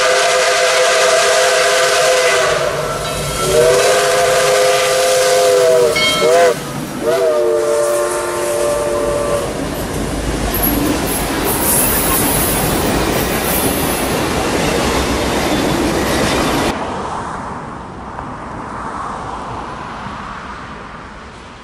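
Locomotive air horn sounding a chord in the grade-crossing pattern: long, long, short, long. Then comes the steady rumble and clatter of the train rolling past. About seventeen seconds in, the sound cuts to a much quieter outdoor background.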